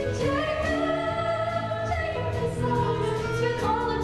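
A stage-musical ensemble singing together over instrumental accompaniment, with long held sung notes and a steady bass line.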